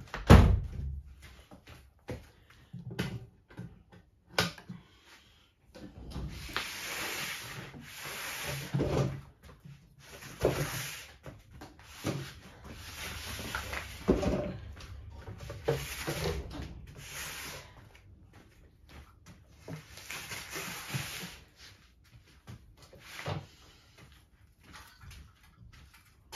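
Hollow boxes being picked up, set down and shifted on artificial turf: a loud knock right at the start, further knocks through the middle, and stretches of scraping and shuffling as they are moved into place.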